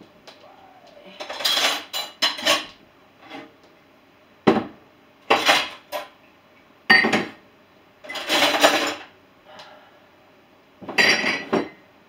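Dishes and cutlery clattering as a dishwasher is unloaded, in about six short bursts with pauses between.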